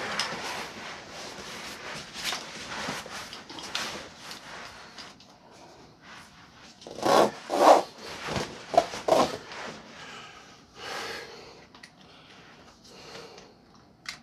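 Nylon shoulder straps and fabric of a soft crossbow case rubbing and rustling as it is slung on like a backpack, with a few louder brushes about seven to nine seconds in.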